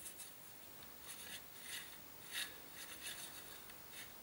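A handful of faint, short scratchy rasps as a T-handle Torx key turns out the screws holding the handguard of a Sako TRG M10 rifle.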